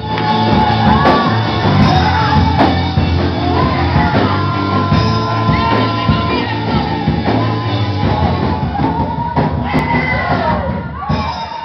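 Loud live Pentecostal worship music, a band with steady bass and drums, with voices singing and shouting over it in a large hall.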